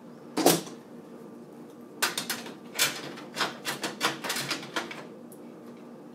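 Nylon cable ties being fitted around PC cooler fan cables: one sharp click about half a second in, then a run of quick ratcheting clicks for about three seconds as the ties are pulled tight.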